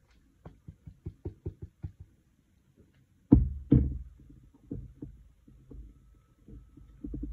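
Lotion bottle tapped down on a countertop to settle the thick lotion that is getting stuck near the top: a quick run of about eight light knocks, then two louder knocks a little past three seconds in and a few softer ones after.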